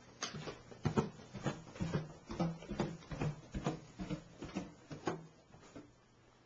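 Footsteps coming down a flight of wooden stairs: a steady run of thumps, two to three a second, stopping near the end.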